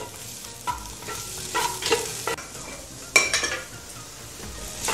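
Diced bacon frying in a hot clay pot while a wooden spatula stirs it, with a light sizzle and several scrapes and knocks of the spatula against the pot. The loudest knock comes about three seconds in. The bacon has just gone in and is starting to give off its fat.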